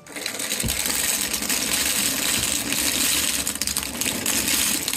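Dozens of disposable vapes pouring out of a cardboard box, a dense, continuous clatter of small plastic-and-metal sticks tumbling against each other.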